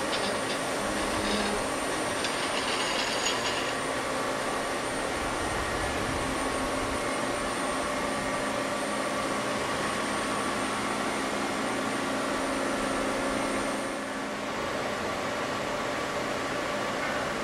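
Unify UNION-50A thread rolling machine running steadily, a hum of several tones over a hiss, with a few light clicks in the first few seconds. A high whine drops out about 14 seconds in and the sound eases slightly.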